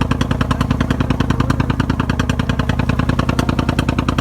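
Boat's inboard engine running under way, a fast, even thumping of about a dozen beats a second.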